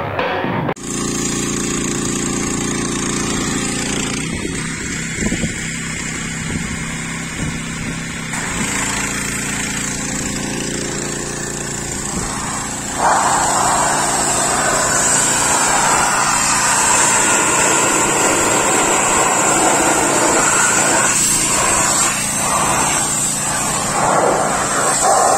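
A motor running steadily; about halfway through a louder, steady rushing noise joins it.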